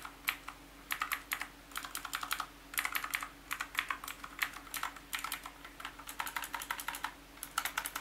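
Clicky blue mechanical key switches on an AOC GK410 keyboard being pressed, a sharp click with each keystroke in quick runs of presses with short pauses between them.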